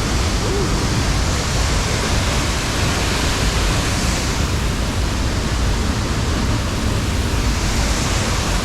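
Waterfall close by, a loud steady rush of falling water.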